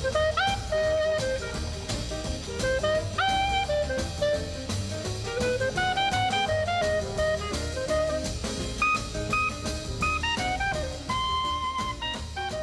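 Jazz background music: a horn plays a melody with upward-scooping notes over a drum kit.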